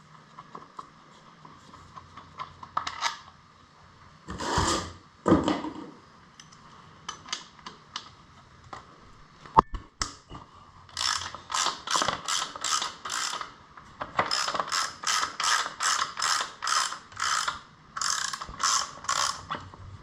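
Hand socket ratchet working a bolt: scattered clicks and a couple of short scrapes at first, then from about halfway a steady run of ratchet strokes, roughly two a second.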